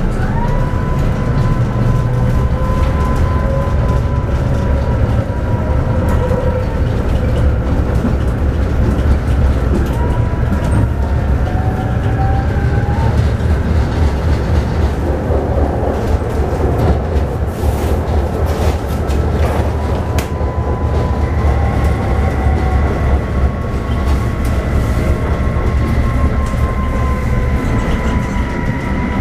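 A Tatra T3 tram heard from inside while under way: a loud, steady low rumble of wheels on rail with occasional clicks, and whining tones that rise and fall as it speeds up and slows.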